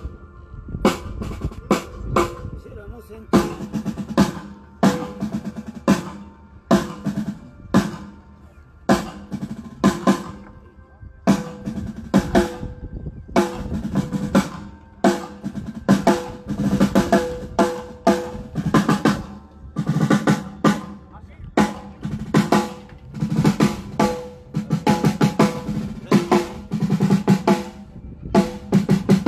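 Miked snare drum struck again and again for a sound check, in single strokes and short rolls, each stroke ringing on briefly.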